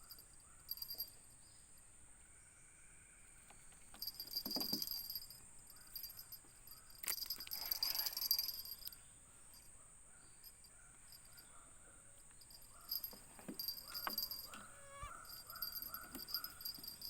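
Chorus of insects: a steady high drone with pulsing cricket-like chirps, joined by short repeated chirping calls. A couple of louder rustles break through, about four seconds in and again around eight seconds in.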